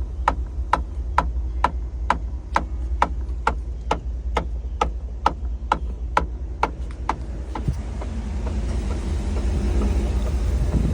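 A steady, rhythmic knocking from the passenger-side rear interior quarter panel of a 2012 Chevrolet Tahoe LTZ, about two sharp knocks a second over the low rumble of the running vehicle. The knocks stop about seven seconds in as the vehicle noise rises.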